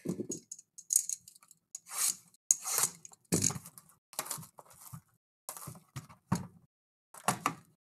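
Plastic shrink wrap crinkling and tearing as it is pulled off a cardboard trading-card box, in short irregular crackles.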